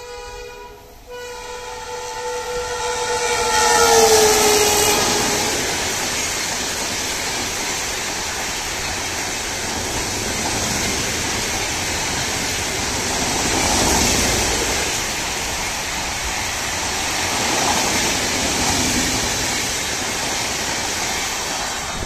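WAP-7 electric locomotive's multi-tone horn honking as the train approaches at full speed. The horn breaks off briefly about a second in, then drops in pitch as the locomotive rushes past about four seconds in. After that come the steady rush and clatter of the express's coaches passing at speed, swelling and easing a couple of times.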